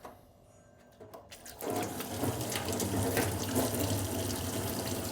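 A few light clicks, then water running steadily from a tap, starting about a second and a half in.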